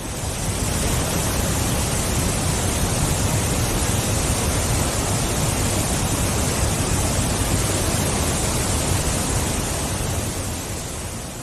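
Hakuiyam waterfall's water rushing in a steady, dense hiss with a deep rumble beneath, swelling in over the first second and fading near the end.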